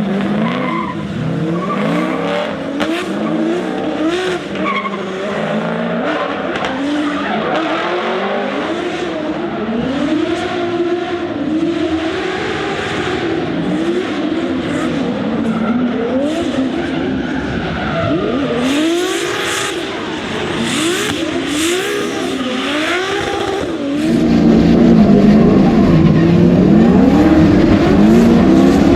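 Drift car engine revving hard up and down again and again, with tyres squealing and skidding. About 24 seconds in, the sound jumps louder.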